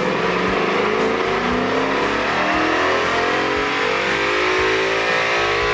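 2011 Ford Mustang GT's 5.0-litre V8 pulling on a chassis dyno, its engine note climbing steadily in pitch through the run. A rock song plays over it.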